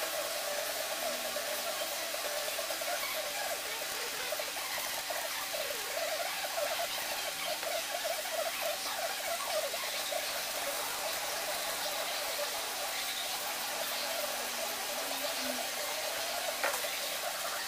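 A steady background hiss, with faint, quick, wet dabbing of a resin brush stippling into fiberglass mat, thickest around the middle.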